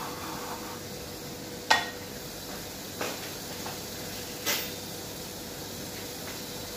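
A metal utensil clinks sharply against a glass baking dish four times while fried potato cubes are spread in it. The first clink is the loudest and rings briefly. A steady hiss runs underneath.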